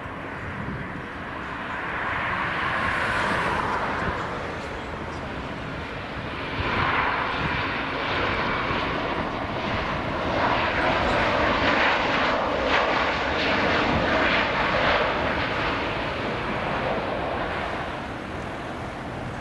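Jet engines of an AnadoluJet Boeing 737 landing and rolling out along the runway: a broad roar that swells as the airliner comes in, is loudest through the middle, and eases off near the end.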